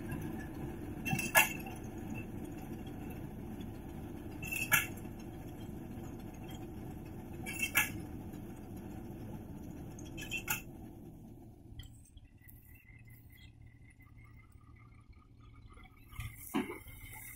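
Tractor and mounted reaper cutting wheat: a steady low engine drone with a sharp metallic clink about every three seconds. The drone drops away after about twelve seconds as the tractor draws off, leaving a quieter background.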